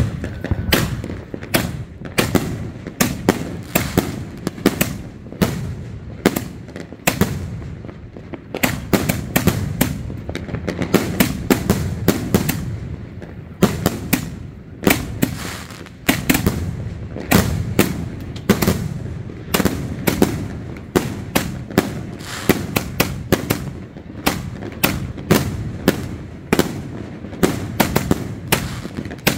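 A 200-shot aerial firework rack firing: a fast, unbroken string of launches and sharp aerial bursts, several reports a second.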